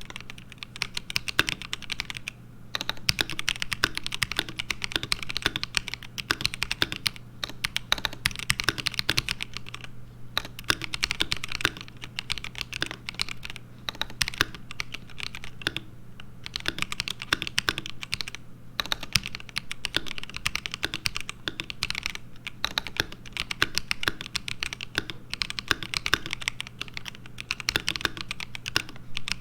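Fast, continuous typing on an ASUS ROG Azoth mechanical keyboard with pre-lubed, stock ROG NX Linear Red switches, broken by a few short pauses. A steady low hum runs underneath.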